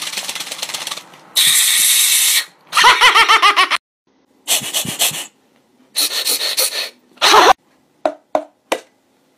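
A man's laughter and short vocal noises in several bursts. Before them come a rapid run of clicks and then a hiss lasting about a second.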